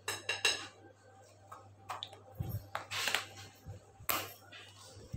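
A few light clicks and taps of kitchenware as a measuring spoon of baking powder is dipped into a bowl of flour: two near the start, then single clicks about three and four seconds in.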